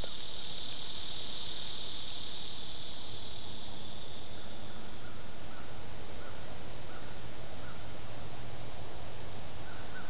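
Steady evening insect chorus, a high continuous drone, with a fainter short chirp repeating from about halfway through.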